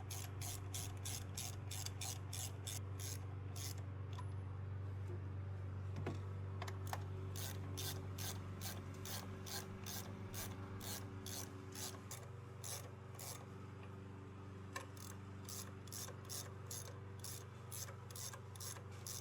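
Hand socket ratchet clicking in quick, even runs as bolts on a new engine mount are snugged up, with a pause of a few seconds about four seconds in.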